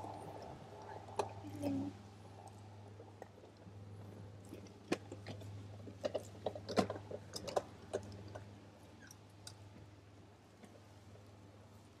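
Fallow deer buck grazing at close range: an irregular run of crisp clicks and crunches as grass is torn and chewed, busiest about five to eight seconds in, over a steady low hum.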